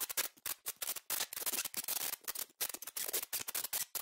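Dense, irregular crackling sound effect: many sharp little clicks a second over a bright hiss, with a couple of brief breaks.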